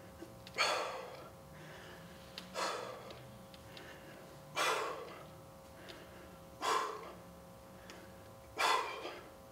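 A man's sharp, breathy exhalations: five of them, about every two seconds, one with each repetition of a dumbbell lateral raise under exertion.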